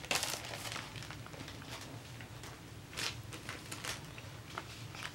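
Faint, scattered rustles of sticker sheets in a clear plastic sleeve being handled, with a few short crinkles near the start and around three and four seconds in.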